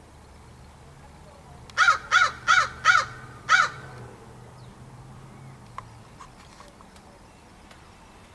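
A crow cawing five times, about two seconds in: four harsh caws in quick succession, then a fifth after a short pause.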